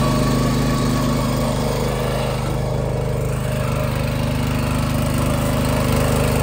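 9 HP Honda power tiller's single-cylinder petrol engine running steadily at full throttle under load, driving its PTO rotary plough as it cuts the soil and throws it to one side.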